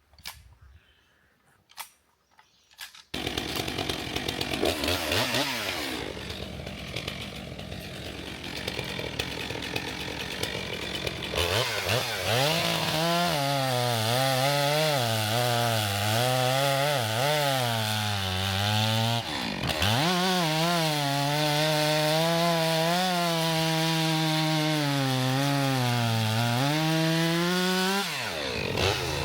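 A two-stroke chainsaw running. From about twelve seconds in it cuts through a log, its pitch sagging and recovering under load, and it drops sharply twice, briefly, between cuts. The first few seconds are near silence.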